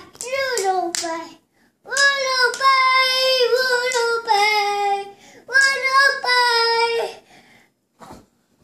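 A toddler girl singing in a high voice, holding long notes in three phrases; she stops about seven seconds in.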